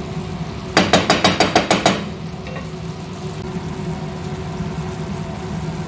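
About a second in, a metal utensil or lid clatters against the cooking pot in a quick run of about eight sharp clicks. Then a steady hum continues with a faint sizzle as the liver and onions cook.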